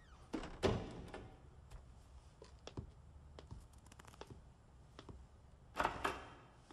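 Wooden door sound effects in a small room: a heavy thunk about half a second in and another near the end, with scattered light knocks and clicks between.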